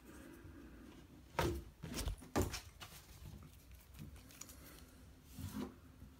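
A few faint knocks and scrapes of hand and phone handling, about one and a half seconds in, twice more a second later, and again near the end, as excess plumber's putty is wiped from around a newly fitted tub drain flange.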